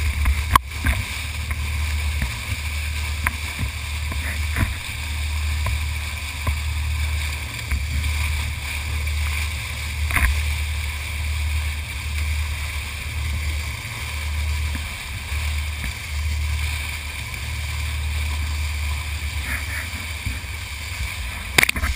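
A charter fishing boat under way, heard as a low drone that swells and eases every second or two, with water rushing and splashing at the bow and a few sharp knocks.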